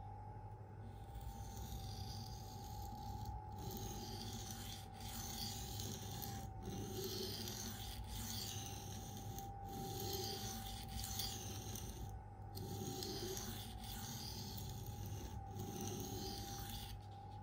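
Spyderco Endura K390 blade being stroked along a wet Atoma 400 diamond plate to apex the edge: a gritty scraping in passes of about a second and a half with short breaks between them. A steady faint hum runs underneath.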